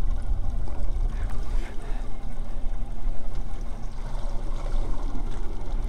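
Small boat at sea: a steady low rumble with water gently sloshing against the hull.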